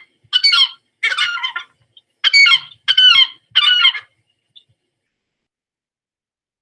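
Herring gull calling: a series of five loud calls in the first four seconds, each a few tenths of a second long, then it stops.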